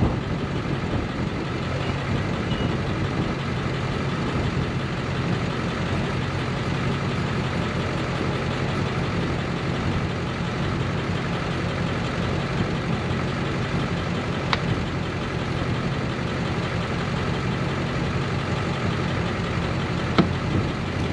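A steady engine-like drone, as of a motor idling, that holds without change. Two light, sharp clicks come through, one past the middle and one near the end.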